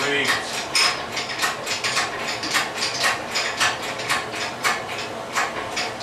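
Engine hoist being worked to raise an engine, clicking in a steady rhythm of about three clicks a second.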